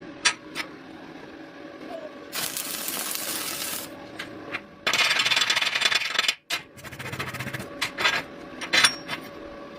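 Metalwork: sharp clinks of steel pieces knocking together, broken by two crackling hissing bursts of a second and a half each, a little after the two-second mark and just before the five-second mark.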